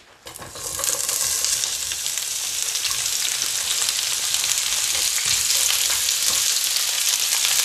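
Chopped onion dropping into hot vegetable oil in a frying pan and sizzling. The sizzle builds over the first second to a steady hiss as more onion is scraped in from a steel bowl with a wooden spatula.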